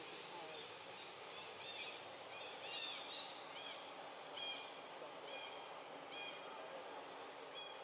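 A small animal's short, high-pitched chirps, several close together in the first few seconds, then one about every second.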